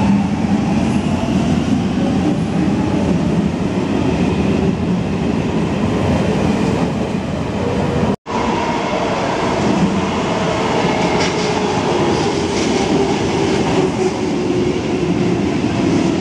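Helsinki Metro train running past an underground station platform: a steady loud rumble of wheels on rail with a shifting whine over it. After a momentary gap about eight seconds in, another metro train comes in and runs past the platform.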